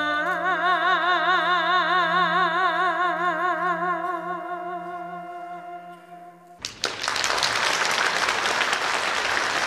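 A female singer holds one long final note with a wide, even vibrato into a microphone. The note cuts off about six and a half seconds in, and audience applause breaks out at once.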